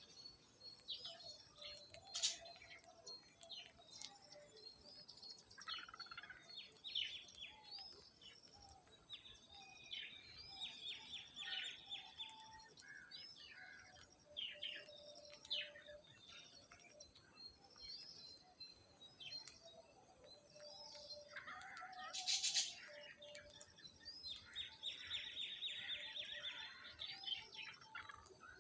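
Parrots chirping and squawking in quick, irregular calls, with a louder flurry near the end, over a steady high-pitched tone.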